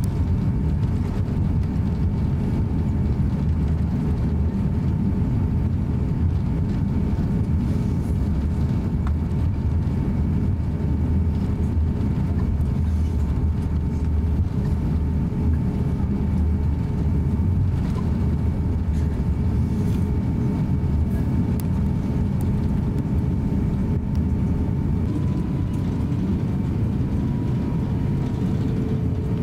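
Cabin noise of an Airbus A350-900 airliner taxiing: a steady low rumble of the Rolls-Royce Trent XWB engines at taxi power and the rolling wheels, with a faint steady hum that shifts slightly in pitch near the end.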